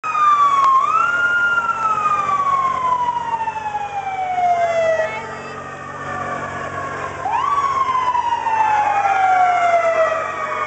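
Fire engine siren winding up sharply and then falling slowly in pitch, twice.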